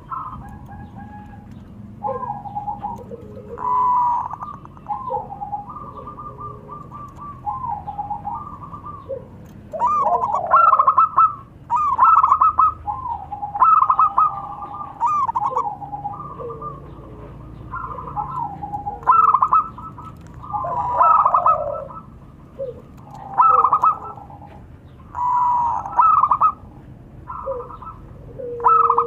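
Several zebra doves cooing back and forth, short cooing phrases following one another every second or two and sometimes overlapping.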